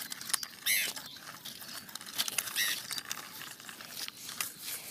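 Plastic toy truck being pushed over dry dirt and dead leaves: irregular crackling, scraping and small clicks of its plastic wheels and body on the ground.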